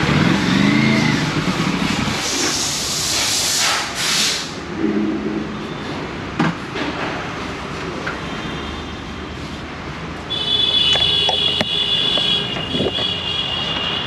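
Aprilia RS 457 parallel-twin engine running at low speed, with a brief rev rising and falling about a second in. A loud hiss follows a few seconds in, and a steady high whine sounds over the last few seconds.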